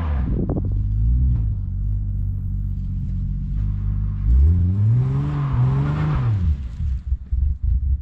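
Toyota 2JZ-GTE VVT-i inline-six engine running and being revved: a brief rev just after the start, a steady run, then a longer rev that rises and falls about four seconds in. Near the end the sound turns choppy and uneven.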